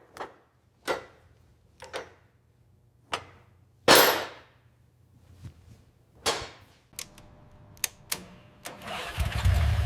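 A run of sharp knocks, roughly one a second, the loudest about four seconds in, some ringing briefly. Near the end a loud, steady low rumble sets in.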